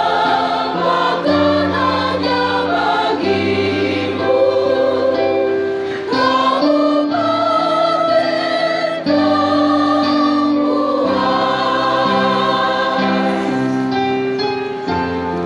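Choir of mostly women's voices singing a regional anthem together, holding long notes.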